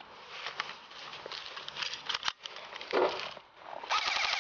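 Clicks and rustling, then near the end an airsoft AK-47 begins firing a rapid, evenly spaced string of shots.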